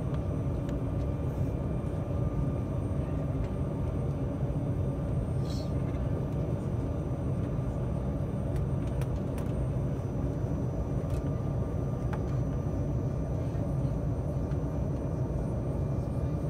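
Cabin noise inside an Embraer 195 airliner on the ground: the steady low rumble of its GE CF34 turbofan engines and the airframe, with faint steady whine tones over it.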